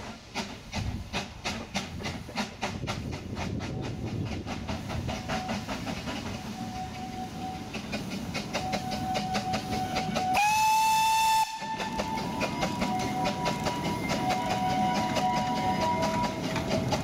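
Narrow-gauge steam locomotive working, with a regular run of beats, then one whistle blast about a second long, the loudest sound here, about ten seconds in.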